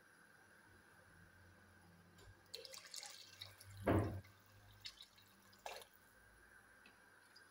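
Water poured into an aluminium cooking pot of tomato-and-spice pilau base, with a short splash about four seconds in. Light clatter comes before the splash, and a couple of small knocks come after it from the bowl and jug being handled.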